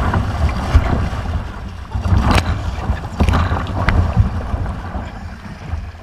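River rapids rushing and splashing against a kayak as it runs white water, with several sharper splashes about two and three seconds in and a low rumble of water and wind buffeting the microphone.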